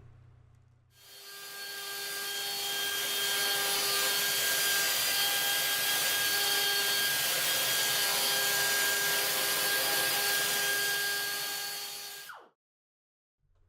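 Pneumatic die grinder running and grinding metal: a dense hiss with a steady whine. It builds up over the first few seconds and dies away shortly before the end.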